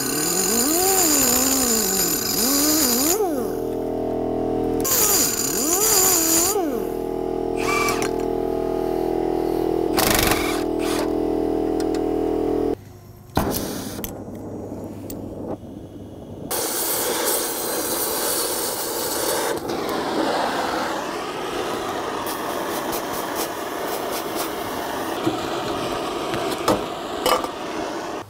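Air cutoff tool with a diamond cutoff wheel running and cutting through a rusted trailing-arm bushing in two bursts, its pitch sagging and recovering under load. About thirteen seconds in it stops. After a sharp pop, an oxy-acetylene torch flame hisses steadily as it heats a rusted suspension part red-hot.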